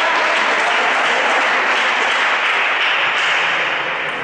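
Spectators applauding, a dense, steady clapping that eases off slightly near the end.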